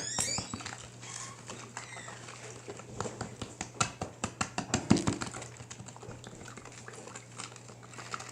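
A toothpick stirring borax into a bowl of water, tapping and clicking irregularly against the bowl, the loudest taps about five seconds in.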